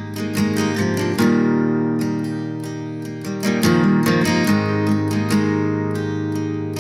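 Background music: relaxed acoustic guitar, strummed and picked, with a steady rhythm.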